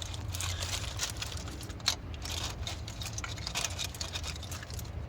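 Scattered light clicks and rustling of parts being handled in an engine bay, over a steady low hum.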